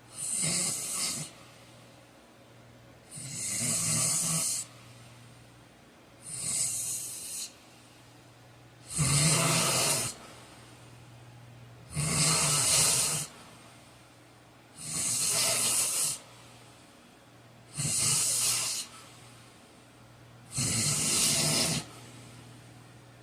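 A heavy-set man snoring loudly in his sleep: eight snores in a row, each about a second long and coming about every three seconds.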